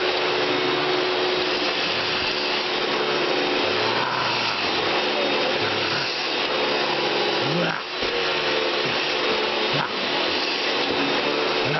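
Vacuum cleaner running steadily, a continuous rushing motor noise with a steady hum, briefly dipping in level twice in the latter half.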